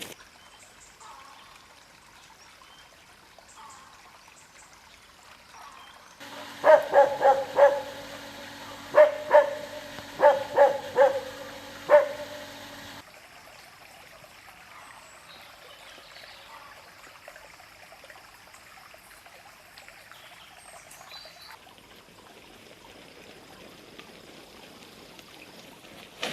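A dog barking, about ten sharp barks in a few quick groups between about 7 and 12 seconds in; faint outdoor background noise otherwise.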